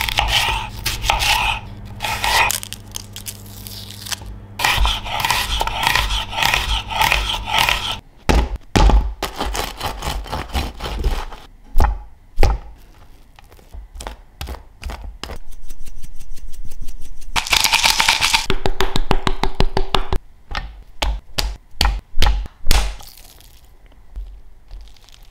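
A kitchen knife cutting a red onion on a plastic cutting board: sharp knocks of the blade on the board, some in quick chopping runs, with scraping between them. A low steady hum runs under the first eight seconds.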